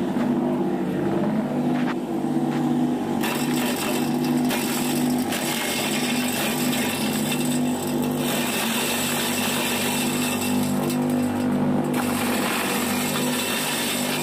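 Homemade vegetable chopper driven by a motor from a used Shimizu water pump, running with a steady hum. From about three seconds in, cabbage leaves are dropped into the bucket and shredded by the spinning blade, adding a rough chopping noise in stretches.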